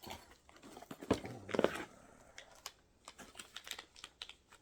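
Hands handling small items and their packaging: a run of quick clicks and rustles, with a louder burst of handling noise from about one second in.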